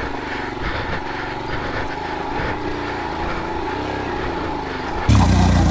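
Off-road motorcycle engine revving, its pitch rising and falling unevenly. A sudden louder low rumble comes in about five seconds in.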